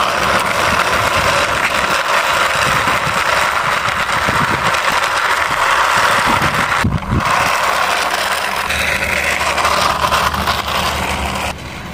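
Plastic toy cement mixer truck pushed by hand along a concrete wall, its wheels rolling with a steady rumbling noise that breaks off briefly about seven seconds in.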